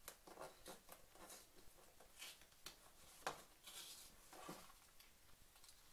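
Faint rustling and crinkling of a paper envelope being handled and picked open at its flap, with soft scratches of fingers on paper and one sharper click about three seconds in.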